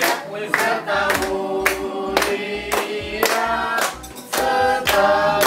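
Voices singing together over a steady beat of sharp claps, about two a second.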